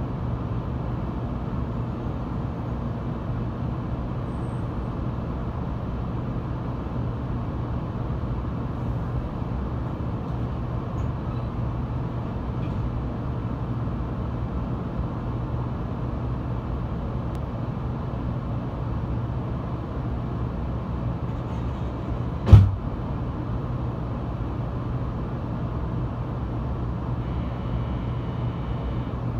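Steady low hum inside a Shinkansen 800 series passenger car standing at a station platform, with a single sharp thump once late on.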